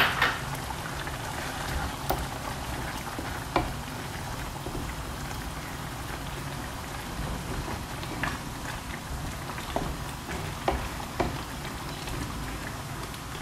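Tomato sauce simmering in a frying pan on a gas burner, a steady bubbling and spattering, while a wooden spoon stirs in fresh basil and knocks against the pan now and then. The loudest knock comes right at the start.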